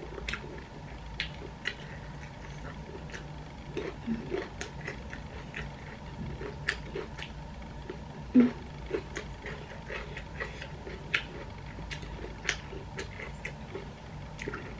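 Close-up eating sounds: chewing and lip smacks with many short, sharp clicks and taps as rice and fried jengkol are eaten by hand, over a faint steady hum.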